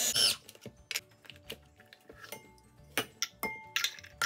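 Electric mini chopper's motor cutting off a moment in. Then scattered plastic clicks and knocks as the chopper is opened and its bowl and blade are lifted out to empty the minced meat.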